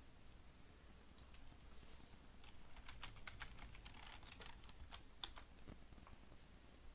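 Faint typing on a computer keyboard: an irregular run of key clicks starting about a second in and stopping shortly before the end.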